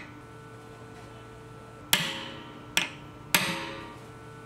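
Three hammer blows on a steel pointing iron held against the chime of an oak barrel, sharp taps with a brief ring, the last two close together. This is pointing: peening the wood at the chime to close a leak.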